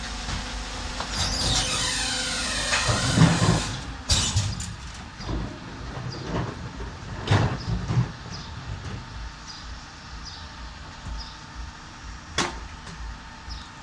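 Rear-loading garbage truck at work, its engine running steadily: a falling mechanical whine from the bin lifter in the first few seconds, then a series of sharp bangs and clatter as plastic wheelie bins are emptied and set back down.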